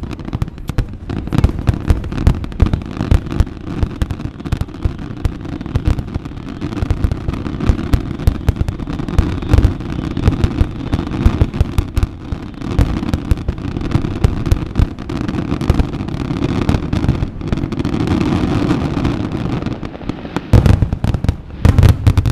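Fireworks finale: a continuous barrage of shells bursting in rapid succession, with no gaps, and the heaviest booms near the end.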